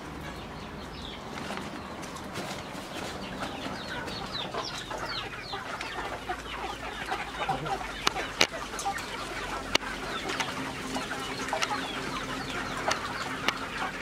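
A flock of native village chickens clucking, many short calls overlapping and growing busier toward the end. Two sharp clicks stand out a little past the middle.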